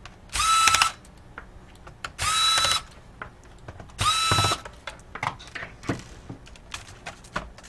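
Small electric screwdriver backing out laptop keyboard mounting screws: three short runs of about half a second each, the motor whining up to a steady pitch and stopping. After the last run come scattered light clicks of small parts being handled.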